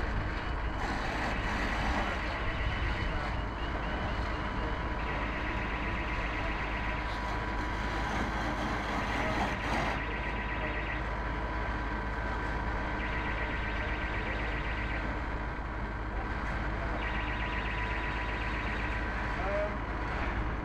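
A fire engine's engine and pump running with a steady low rumble. Over it, an alarm sounds in repeated on-off bursts of about two seconds.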